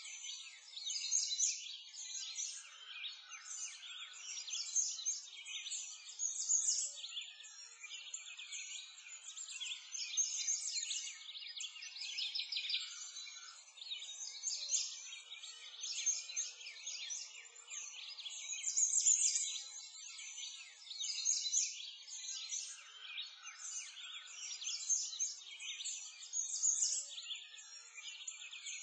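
Dense chorus of songbirds chirping and twittering, all high-pitched with nothing low underneath, swelling and fading every second or two: a birdsong ambience bed.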